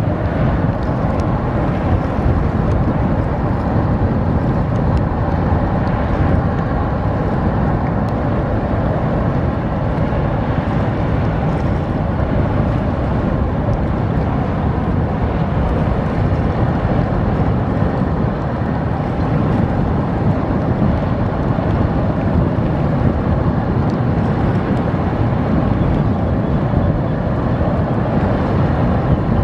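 Steady low rumble of a tugboat's diesel engines running.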